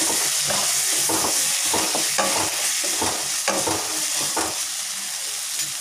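Vegetables sautéing in hot oil in a pan with the freshly added chilli powder, turmeric and salt: a steady sizzle with irregular scrapes of a spatula stirring, about two a second, easing off a little near the end.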